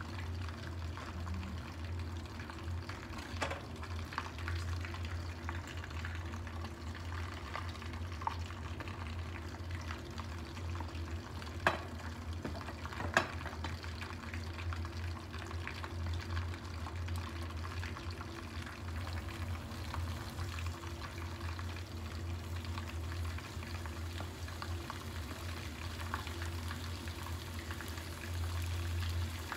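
Beaten eggs cooking in a nonstick frying pan with a soft, steady sizzle over a steady low hum. Two sharp ticks a little before halfway.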